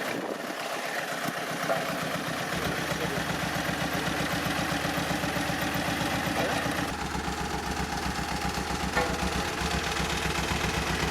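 Road roller's engine running steadily at a low, even beat, with a couple of faint sharp ticks.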